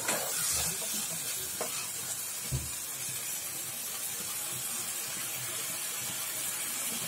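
Thick onion-tomato masala sizzling steadily in oil in a pan as it is fried down, with the metal spatula knocking against the pan twice in the first few seconds.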